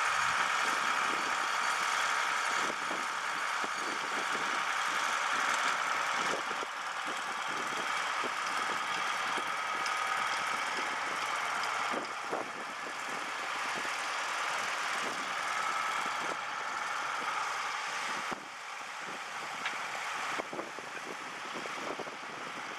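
Farm tractor's diesel engine running steadily under load as it tows a fishing boat on its trailer up the beach.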